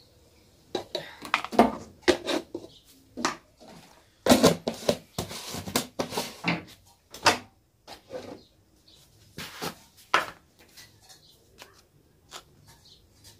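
Kitchen handling clatter: a spoon knocking in an aluminium pot and plastic jars and lids being handled. It comes as a run of sharp knocks and rattles, busiest a few seconds in, then thinning to scattered light clicks.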